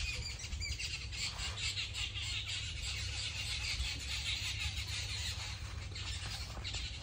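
Many birds chirping over a steady low rumble.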